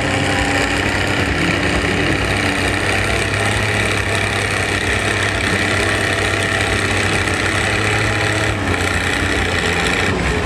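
Farm tractor's diesel engine running at a steady pitch, loud and constant, with no revving.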